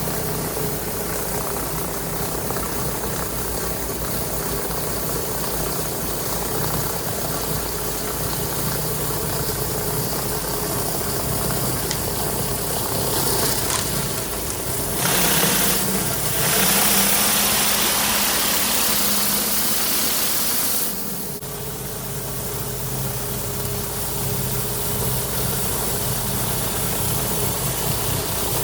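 Gas engine of a pressure washer running steadily. About halfway through, a loud hiss of high-pressure water spray comes in for roughly six seconds, then cuts off.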